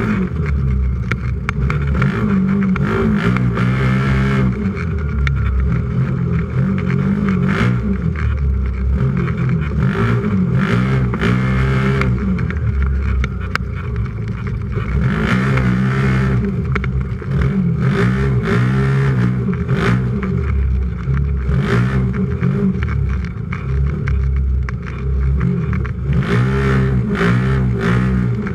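Racing UTV engine heard from inside the cab, revving up and dropping off again and again as the throttle is worked, with a few sharp knocks from the chassis.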